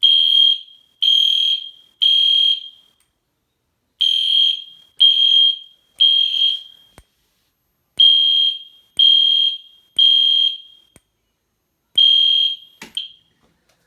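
EST Genesis horn strobe sounding the temporal-three evacuation pattern: groups of three high beeps a second apart, each group followed by a pause. It stops after the first beep of the fourth group, followed by a sharp click.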